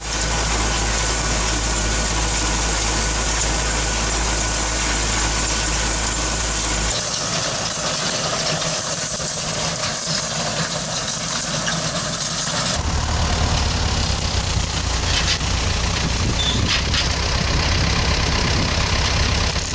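Farm tractor engines running while pulling hay machinery, a rotary rake and a round baler; the sound changes abruptly twice, at cuts between shots.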